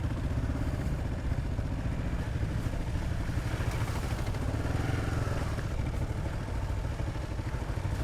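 Single-cylinder dual-sport motorcycle engine running under way on a trail, its pitch shifting a little midway as the throttle changes.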